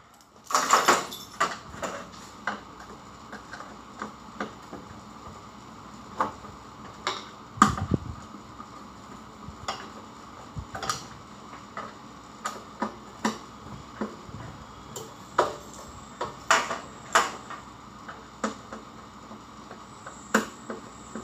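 Irregular metallic clicks, taps and clinks of a screwdriver and screws as a small control transformer is screwed down inside a steel control cabinet, with a heavier knock about eight seconds in.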